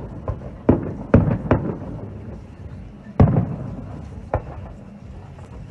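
Fireworks going off in a series of sharp bangs: several close together in the first second and a half, a loud one about three seconds in and another just after four seconds. Each bang trails off in an echo.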